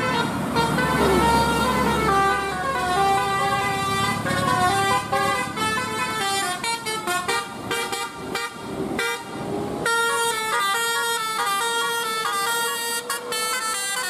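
Telolet horn, the multi-tone musical air horn of an Indonesian bus, playing a quick tune of changing notes over the rumble of passing vehicles' engines. About ten seconds in, the notes come through clearer and choppier as the engine rumble fades.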